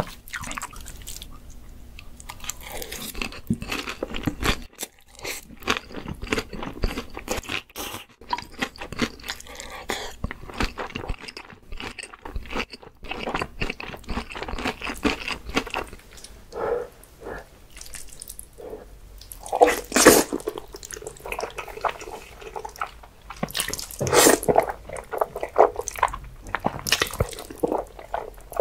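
Close-miked eating: noodles chewed and slurped and crisp fried food crunched in the mouth, a dense run of short wet and crackly sounds, with a few loud crunches in the second half.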